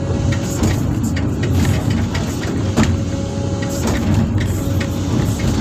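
Sany SY365H excavator's diesel engine running under load, with a hydraulic whine that comes and goes, as the bucket digs through rocky clay. Scattered knocks of stone against the bucket, the sharpest nearly three seconds in.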